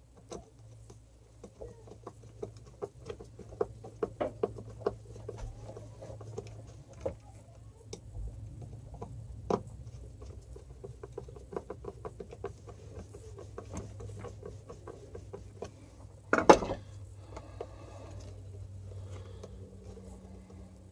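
Light, irregular clicks, taps and scrapes of a screwdriver and small plastic and metal parts as a part is screwed back onto the opened handle housing of a corded hammer drill, over a steady low hum. One louder knock late on.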